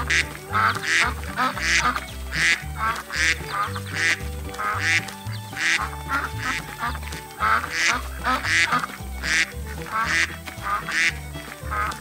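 Ducks quacking over and over, about two quacks a second, over background music with a steady bass line.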